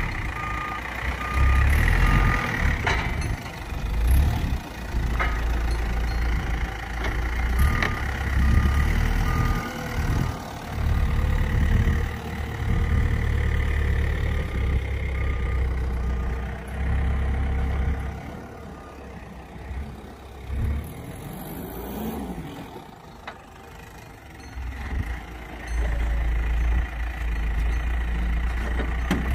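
A vehicle engine working with its back-up alarm beeping about twice a second in several short runs, while apple bins are loaded onto a truck. There are a few sharp knocks, and the engine rumble swells and eases with the work.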